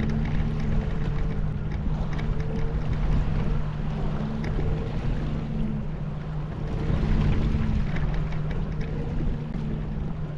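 Boat motor running steadily at low trolling speed, a constant low hum with a slightly higher tone that comes and goes every few seconds, over wind noise.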